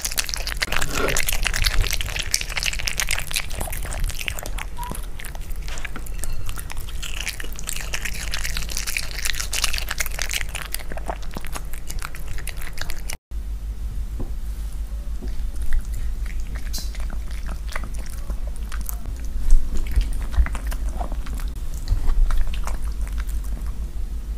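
A poodle eating and licking leftover soup off a plate close to a clip-on microphone: wet lapping and chewing, with its teeth and tongue scraping the plate. The sound drops out for an instant about halfway through, after which there are sparser clicks and smacks.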